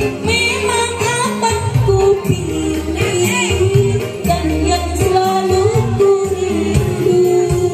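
Loud music with a singing voice over a bass line and jingling percussion, playing without a break.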